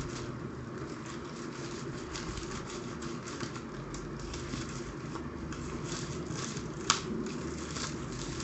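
Hands handling a smartphone's retail box and packaging: light scraping and rustling, with one sharp click about seven seconds in.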